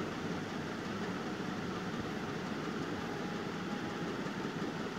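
Steady background rumble with hiss, unchanging throughout; no speech.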